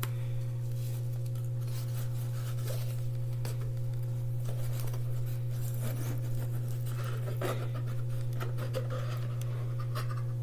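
A steady low hum, with faint rustling and scraping now and then as a cardboard gift box and its tissue paper are handled and opened.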